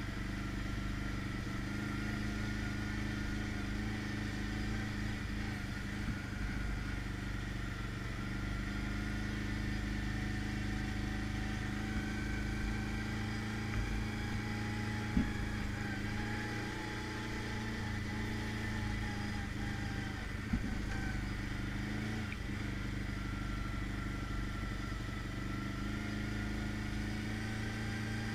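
ATV engine running steadily while riding over a rocky dirt trail, with a faint whine that slowly rises and falls with speed. Two short sharp knocks come about halfway through and again a few seconds later.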